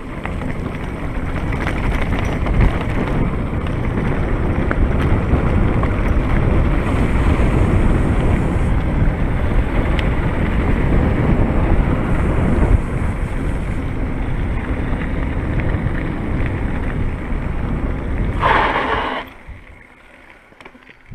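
Wind buffeting a rider's body-mounted camera microphone, with the rumble and rattle of a mountain bike rolling over rough trail. Near the end comes a brief higher-pitched sound, then the noise drops away suddenly as the bike slows to a stop.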